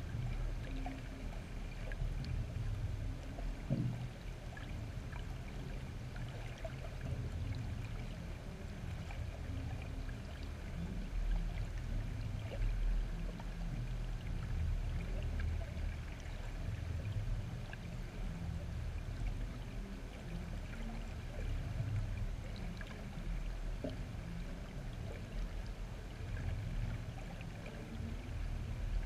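Low, muffled, uneven rumble of water moving around a GoPro sealed in its waterproof housing under water, with a faint click now and then.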